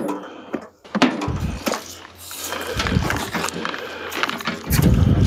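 Clattering and knocking of junk being handled and loaded into a wheelbarrow, including a wire-caged electric fan, with irregular clicks and low thuds throughout.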